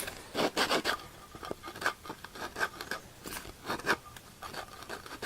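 Sony APM woofer's voice coil scraping as the cone is pushed and pulled by hand: a string of irregular, uneven scratches. The owner suspects dirt in the voice coil, though its former is blistered and it may be burnt.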